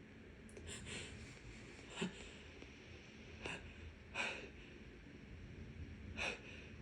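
A person with a heavy cold taking several short, faint, noisy breaths and gasps, a second or so apart, as a sneeze builds.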